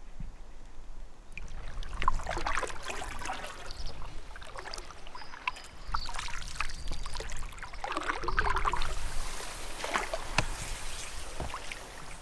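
Canoe paddling: a paddle dipping and pulling through the water, with splashing and dripping in several strokes, starting about a second and a half in.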